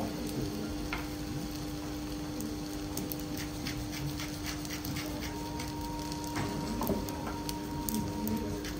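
Wooden pepper mill being twisted over the griddle, its grinder giving quick runs of dry crackling clicks about a third of the way in and again near the end, over a steady low hum.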